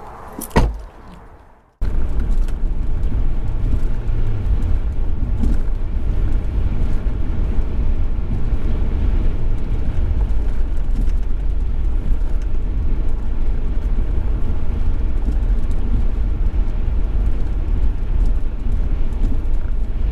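A single sharp knock about half a second in, then from about two seconds in the steady low rumble of a car being driven, heard from inside the cabin: engine and tyre noise.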